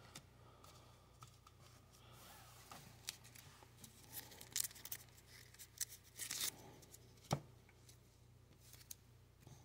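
Faint, scattered rustling and light clicks of trading cards being handled by hand, with one sharper click about seven seconds in.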